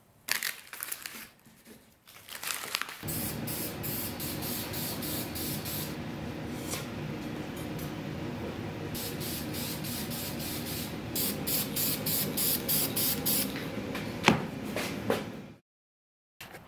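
Masking tape being peeled off painted wood panels, then an aerosol spray can hissing in runs of short bursts over a steady low hum, with a couple of clicks near the end before the sound cuts off.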